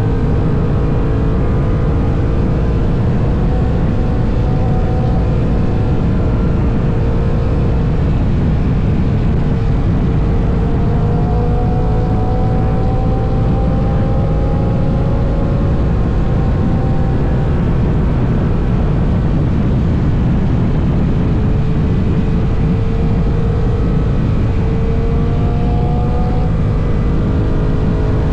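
Honda NT1100's parallel-twin engine running at highway cruising speed, under a heavy steady rush of wind and road noise; the engine's pitch drifts slowly up and down with the throttle.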